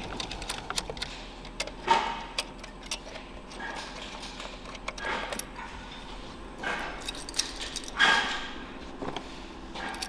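Metal tools and engine parts clinking and rattling while being handled: a scatter of light clicks with a few louder clatters, about two, five and eight seconds in.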